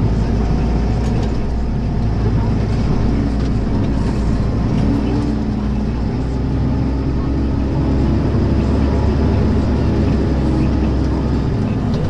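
Tractor engine running steadily under load while pulling a mounted plough through the ground.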